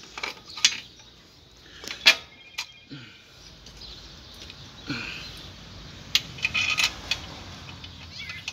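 Scattered metallic clinks and taps of a hand wrench and bolt against the motorcycle's engine and frame while the bolt is being fitted.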